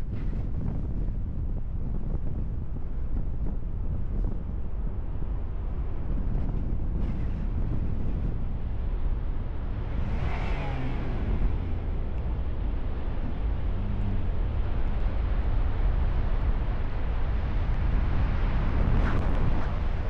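Steady low rumble of strong wind buffeting the microphone near a tornado, with a louder hissing gust about ten seconds in.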